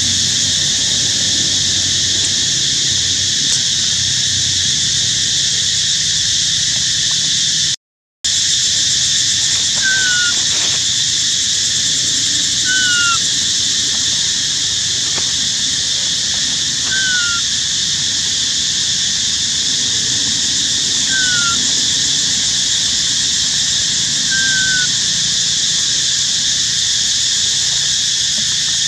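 Steady, loud high-pitched drone of a forest insect chorus. It cuts out for a split second about eight seconds in. From about ten seconds in, a short falling whistled call sounds five times, a few seconds apart.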